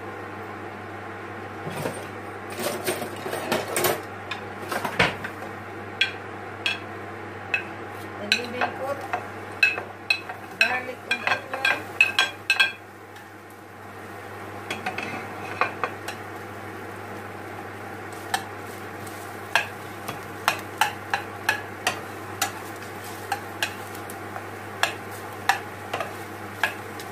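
Boiled potatoes frying in a little oil in a pan, sizzling, while a utensil stirs and turns them, clinking and scraping irregularly against the pan. The clicks are busiest in the first half, ease off for a moment about halfway through, then come back more sparsely.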